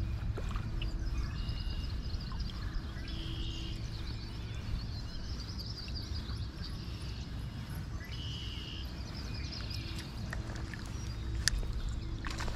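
Steady low rush of a flowing creek running high, with a few short high calls and chirps over it and a couple of sharp clicks near the end.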